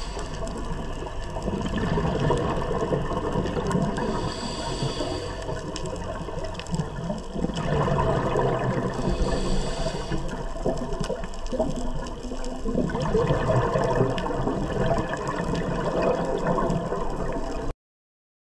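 Scuba diver breathing through a regulator underwater: a short hiss of inhalation, then a long gurgling rush of exhaled bubbles, repeating about every five seconds. The sound cuts off suddenly near the end.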